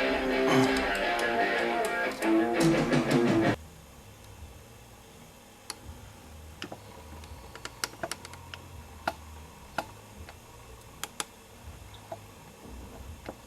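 Guitar music playing, then cutting off abruptly about three and a half seconds in. After that only a low hum remains, with a dozen or so faint, sharp clicks scattered through the rest.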